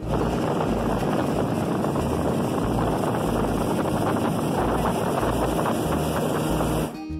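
Outboard motor of a small fishing boat running under way, with wind blowing on the microphone, as a steady loud roar that cuts off suddenly near the end.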